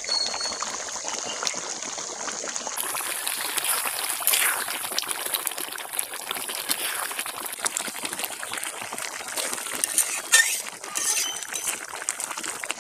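Thick chicken roast gravy simmering and bubbling in a karai while a spatula stirs it, with small clinks and scrapes against the pan and a few louder clinks about four seconds in and again near the end.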